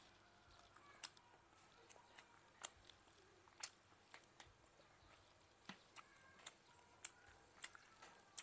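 Close-miked chewing of grilled frog: a dozen or so sharp, irregular crunches and mouth clicks against a quiet background.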